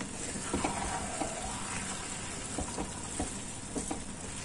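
Grated-carrot halwa sizzling softly in a pan as it is stir-roasted with a wooden spatula, with a few light taps and scrapes of the spatula, while the last moisture cooks off.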